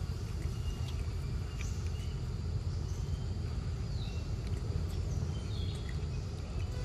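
A steady low rumble, with faint, scattered bird chirps above it, one of them a short falling call about four seconds in.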